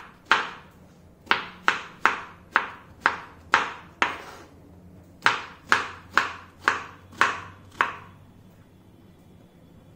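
Knife chopping eggplant into cubes on a wooden cutting board: sharp knocks of the blade on the board, about two a second, with a short pause midway, stopping near the end.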